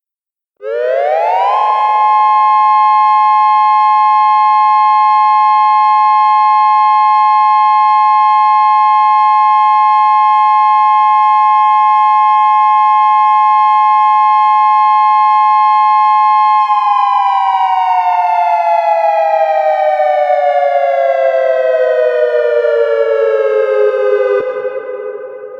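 Synthesized Federal Signal electronic siren on the UV controller sounding its steady major-third dual tone of 850 and 1062.5 Hz. It climbs quickly to pitch, holds both tones steady for about fifteen seconds, then both tones slide down together in a slow wind-down and fade out near the end.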